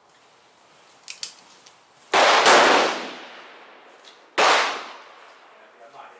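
.44 Special Bisley revolver firing two shots about two seconds apart, each a sharp bang with a ringing decay; the rounds are light handloads of a 262-grain cast bullet over 4.5 grains of Bullseye powder. Two quieter sharp clicks come about a second in.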